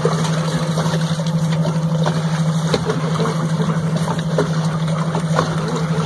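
A boat's steady low hum, with water lapping against the hull and a few light knocks.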